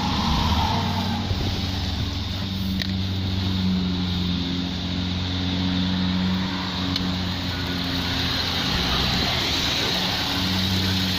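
Holden VE Commodore's 3.6-litre LLT V6 engine idling steadily.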